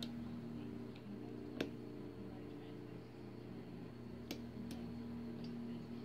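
A hook pick working the pins of a Winkhaus euro cylinder lock: a handful of small, sharp, irregular clicks, over a low steady hum.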